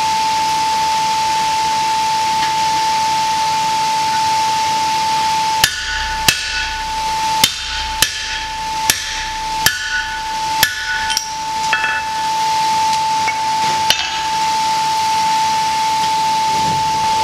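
Hand hammer striking the top die of a blacksmith's guillotine tool over a hot steel bar, about nine sharp metal blows roughly a second apart starting about a third of the way in. A steady high whine with hiss runs under the blows throughout.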